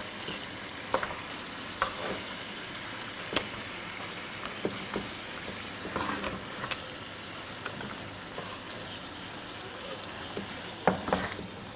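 Chicken pieces sizzling steadily in the pot as they steam, partly cooked, with a few sharp utensil clicks at irregular intervals.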